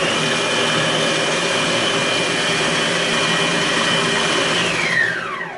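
Moulinex Companion food processor running at its top speed (12) with the Ultra Blade, puréeing steamed apples and prunes: a loud, steady motor whine that winds down with a falling pitch near the end.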